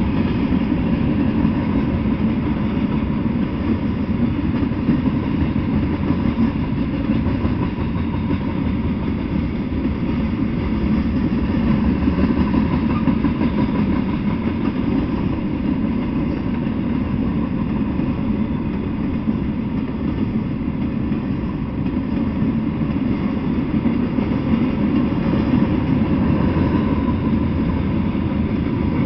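Freight train of tank cars and covered hoppers rolling past, a steady rumble of wheels on the rails that does not let up.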